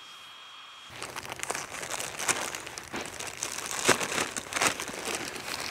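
Clear plastic bag crinkling and rustling as it is handled, in an irregular run of crackles that starts about a second in.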